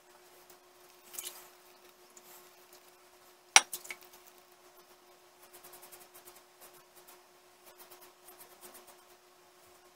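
Fine Superlight slant safety razor scraping through lathered stubble in runs of short quick strokes, with a brief hiss about a second in. At about three and a half seconds a single sharp clack rings out, the loudest sound.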